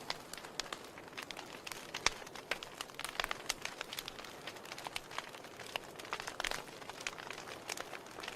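Log fire burning in a fireplace, crackling with frequent irregular sharp pops and snaps over a soft steady hiss.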